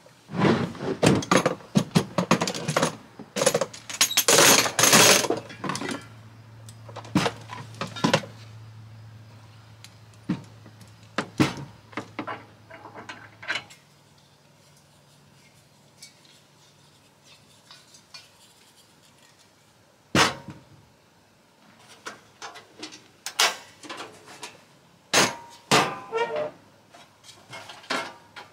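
Clinks, knocks and rustling of dishes, utensils and food packaging being handled during food preparation. It is busy for the first several seconds, then only occasional knocks, with a faint low hum underneath for roughly the first half.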